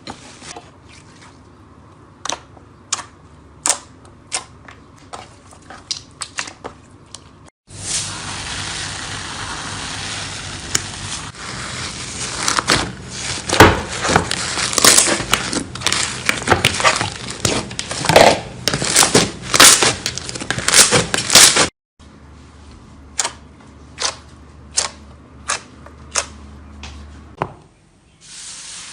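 Slime being squeezed and pressed by hand, giving sticky clicks and crackling pops. The sound cuts off abruptly twice, and between the cuts the clicking is louder and denser.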